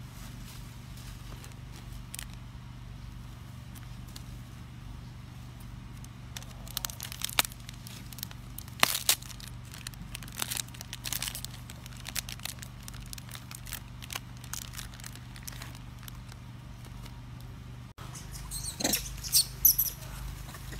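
Crackly rustling and tearing as a macaque rummages in a cloth bag and peels fruit, over a steady low hum. Near the end, high-pitched macaque squeals.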